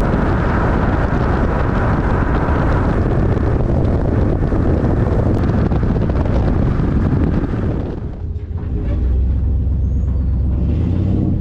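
A vehicle running, with loud rushing wind noise over it. About eight seconds in the rush drops away briefly and a lower, steadier engine drone follows.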